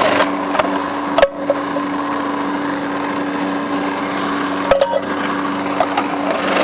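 Magimix food processor motor running steadily as red cabbage is pushed through its slicing disc and shredded. Two sharp knocks come about a second in and again near the end.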